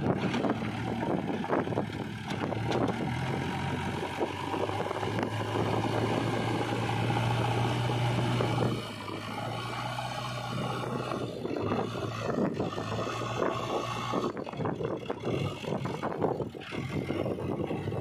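JCB 3DX backhoe loader's diesel engine working under load as the front loader bucket pushes into the soil and scoops up earth. The steady engine hum is loudest for the first half and drops about nine seconds in.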